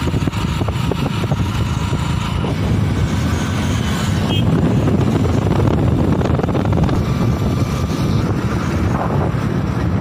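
Steady rumble of a moving vehicle with wind buffeting the microphone, the low road and wind noise heard while riding along.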